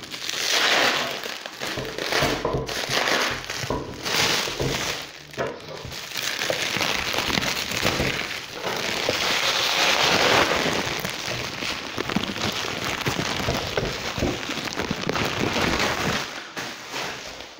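Black plastic bag crinkling and crackling as it is pulled and peeled off a computer monitor. It runs continuously and is loudest about halfway through.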